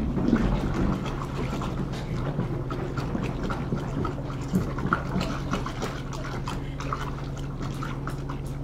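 Wort being stirred by hand inside a plastic Mr. Beer fermenter keg to dissolve the malt extract: liquid swishing, with many small knocks and clicks of the stirring utensil against the keg, over a steady low hum.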